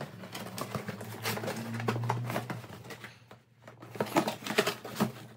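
Cardboard shipping box being opened: packing tape cut and picked at, with irregular scraping, clicking and crackling of the cardboard and a short lull partway through.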